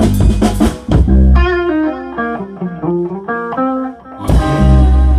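Rock band playing the end of a song: drum hits on the kit for about a second, then electric guitar alone picking a run of single notes. About four seconds in, the band hits one closing chord, with bass, that rings on.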